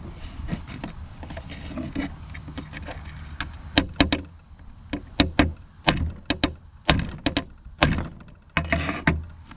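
Hammer striking a steel punch, about a dozen sharp metallic blows at an uneven pace beginning a few seconds in, driving the pin out of a go-kart roller chain link.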